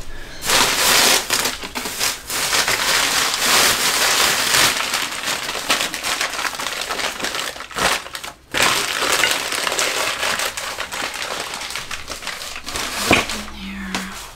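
Paper being crumpled and crinkled as it is wrapped around a ceramic bowl: a continuous rustling that breaks off briefly about eight seconds in.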